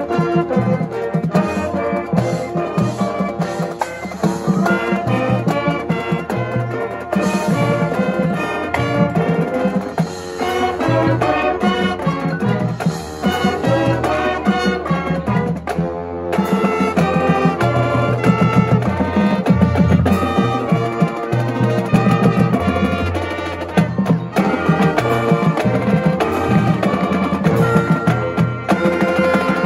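Marching band playing live: brass melody over marching drums and mallet percussion, loud and continuous.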